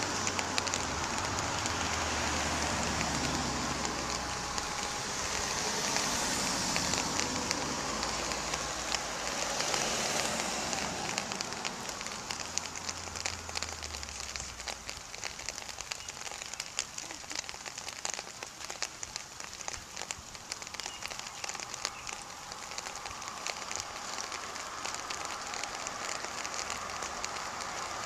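Rain pattering with scattered clicks of drops. A car passes on the wet road in the first half, its rumble and tyre hiss fading out by about fourteen seconds in.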